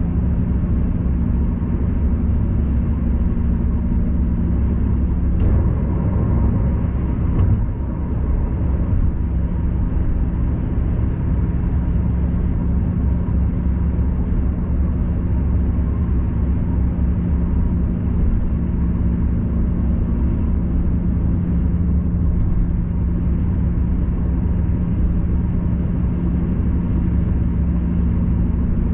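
Steady road and engine noise heard inside a car cruising on an expressway: a constant low rumble with a steady hum. A brief knock about seven seconds in.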